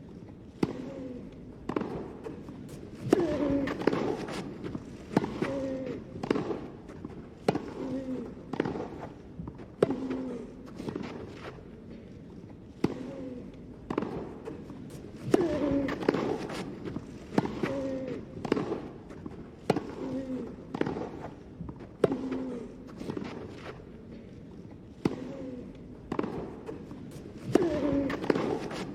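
Tennis ball being struck back and forth in rallies, a sharp racket hit about once a second, many of them with a player's short voiced grunt. There are brief pauses between points.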